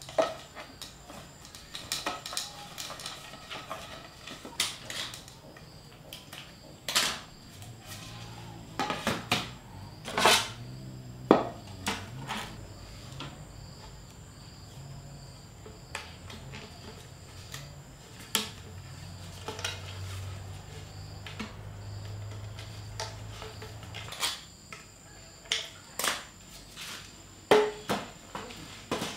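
Scattered sharp knocks and clatters, irregularly spaced and some louder than others, over a steady high insect chirping.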